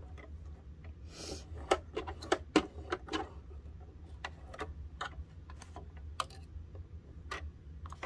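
Irregular light clicks and ticks of fingers and parts on a Singer sewing machine as its bobbin area and threads are set up for sewing, with a short rustle about a second in. A low steady hum runs underneath.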